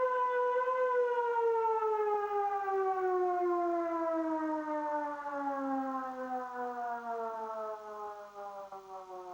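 Russian civil defense siren winding down: a single wailing tone holds for about a second, then slides steadily lower in pitch and fades as it runs down.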